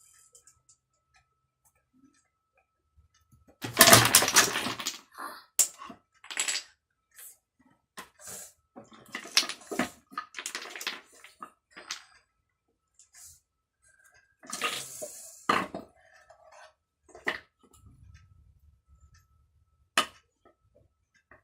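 Wooden toy blocks clattering and knocking together as they are handled, dropped and tipped over, with a dense burst of clatter about four seconds in and further scattered knocks after.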